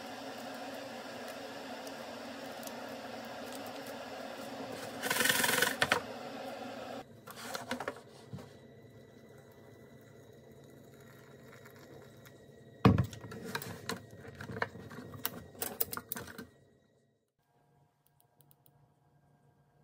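Hot water poured from an electric kettle into a paper instant-noodle cup, amid handling noises: a steady hum that stops about seven seconds in, a loud knock near the middle, then a run of light clicks and taps.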